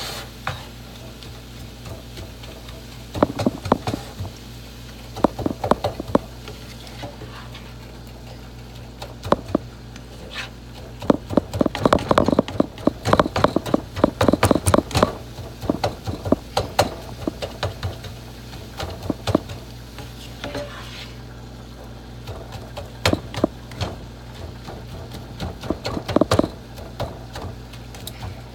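Slotted spatula scraping and tapping against a frying pan while stirring ground meat as it browns. The taps come in scattered clusters, with a busy stretch of quick taps near the middle. A steady low hum runs underneath.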